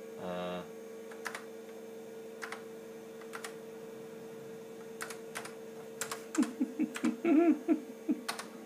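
Keys on the IBM PC XT's keyboard pressed one at a time, sharp separate clicks that come quicker in the second half, over the computer's steady hum. A short beep sounds near the start, and a low muffled murmur, like a voice, comes among the keystrokes late on.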